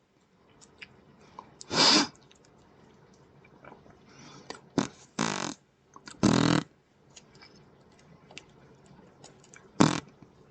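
A string of short fart noises: about five separate blasts, each under half a second, with quiet gaps between; one near the middle drops in pitch.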